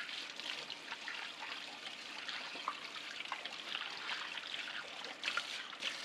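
Kitchen tap running while hands are washed under it, the steady flow broken by small splashes.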